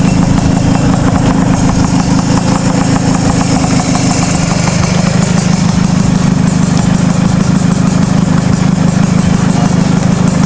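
Vintage Vespa scooter's two-stroke single-cylinder engine idling steadily.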